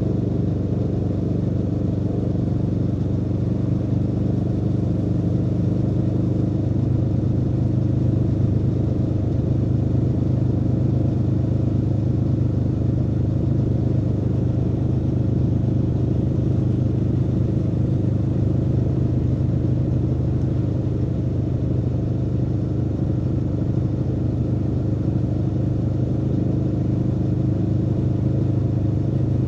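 Aprilia Tuono V4's 65-degree V4 engine running at steady revs while riding, its exhaust note holding a constant pitch.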